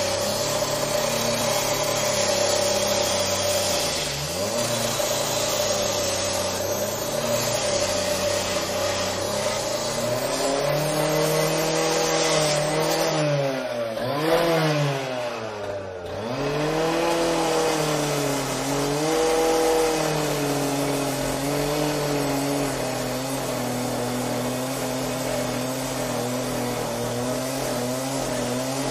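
Angle grinder with a cutting wheel running, its motor whine dipping in pitch and recovering several times as the load on the wheel changes, most deeply around the middle, over a steady hiss.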